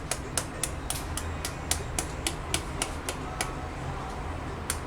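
A spoon tapping on an eggshell to crack the egg: a quick run of sharp clicks, about five a second, that stops about three and a half seconds in, then one more tap near the end.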